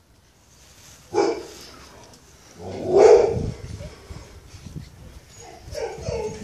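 Akita puppies barking at play: one short bark about a second in, a louder, longer bark around three seconds in, and a few short calls near the end.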